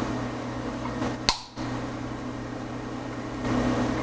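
Steady low hum, with a single sharp click about a second in.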